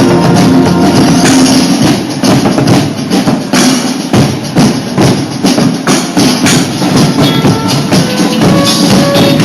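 Marching drumline playing a fast, dense rhythm of drum strikes, with pitched music underneath.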